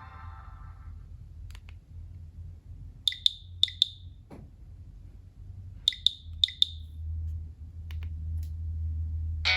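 Nokia 6790 Surge keypad tones: short, high click-beeps in two groups of quick double presses, about three seconds apart, with a few fainter clicks between, as the phone's keys are pressed. The tail of a ringtone fades out at the start.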